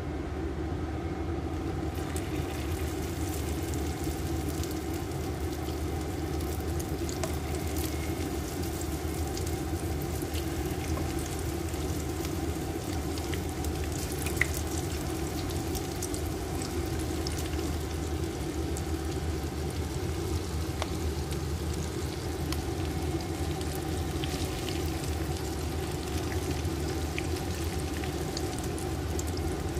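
Breaded fish fillet pieces frying in hot oil in a pan: a steady sizzle with scattered pops and crackles, over a steady low hum. One sharp tick comes about halfway through.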